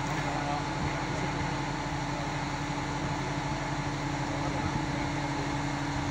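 Mobile crane's engine running steadily as it hoists a chiller unit, a constant machine drone with a few steady hum tones.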